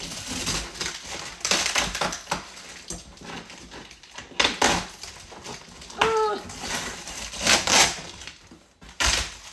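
Cardboard box being torn and ripped open by hand, in a series of noisy tearing and crumpling bursts. About six seconds in there is a brief high cry that falls in pitch.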